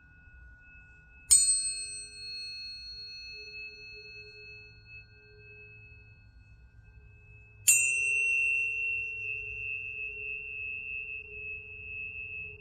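Planetary tuning forks struck twice, about six seconds apart. Each strike gives a bright metallic ping whose high overtones fade fast, leaving a steady, pure ringing tone; the second strike is louder. A lower fork tone already ringing at the start fades out after the first strike.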